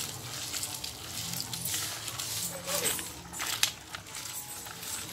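Cooked cabbage chutney being ground by hand in a stone mortar (rolu) with a cylindrical stone pestle: wet crushing and scraping, with a few irregular sharper knocks.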